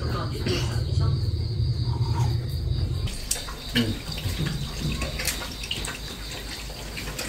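Running water, heavy for about the first three seconds and then lighter, with scattered small clicks and knocks.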